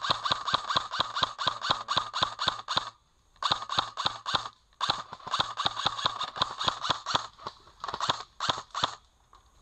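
Airsoft rifle firing in rapid full-auto bursts: three long strings of quick shots separated by short pauses, then a few spaced shots near the end.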